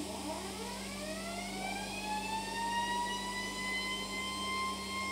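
Turbocharger cartridge on a DBST-20 low-speed balancing machine spinning up on its compressed-air drive: a whine that rises in pitch over the first two to three seconds, then levels off and holds steady as the rotor reaches balancing speed. A steady low hum runs underneath.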